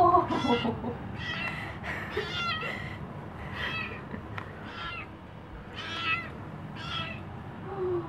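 Siamese-type (snowshoe) kitten meowing over and over, about a dozen short, high calls, one or two a second: insistent greeting meows from a kitten that was left alone and wants attention.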